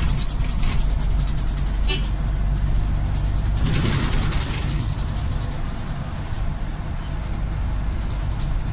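Steady engine and road rumble heard from inside a large vehicle moving through city traffic.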